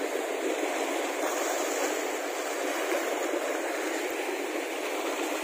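Steady rushing of water, like surf or a tidal current washing over rocks, holding an even level throughout.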